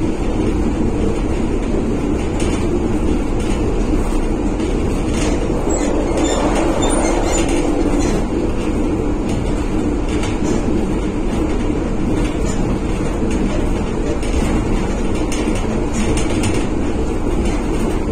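Interior noise of a 1963 PaFaWag EN57 electric multiple unit running along the track: a loud, steady rumble and drone from the running gear, with scattered small clicks and rattles throughout.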